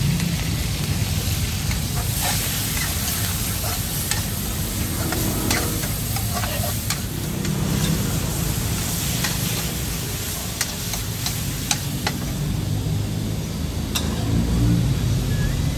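Street-food cooking: food sizzling in a wok while a metal spatula stirs and scrapes it, with scattered sharp clinks of metal on metal. Under it runs a steady low rumble.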